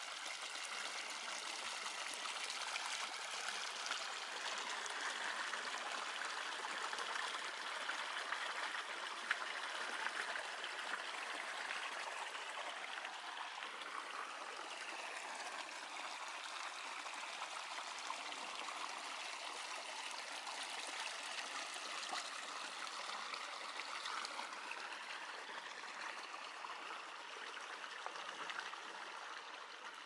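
Small shallow forest stream flowing over a low spot in the ground, a steady rushing ripple of water.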